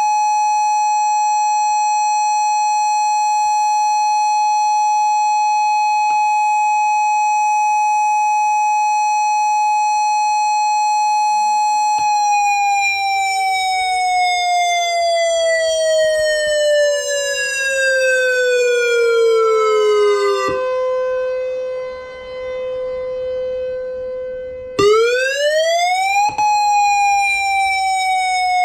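Outdoor warning siren sounding during a system test. It holds one steady tone for about twelve seconds, then its pitch falls slowly, rises sharply about 25 seconds in and falls again. A second, lower siren tone winds up about 11 seconds in and then holds steady.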